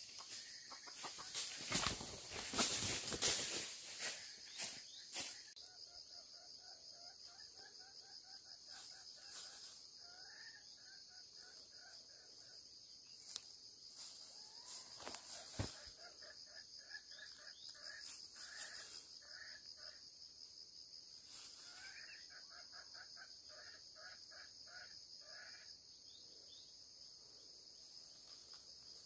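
Red junglefowl snared by the leg: a loud flurry of wing-flapping and rustling in dry leaves in the first few seconds, then several runs of rapid clucking calls, with a single sharp tap about halfway. Insects keep up a steady high buzz throughout.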